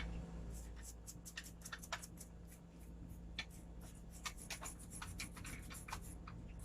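Faint, irregular scratching and rubbing strokes, several a second, as the contacts of an LED TV's LVDS ribbon cable are scrubbed clean of dirt by hand.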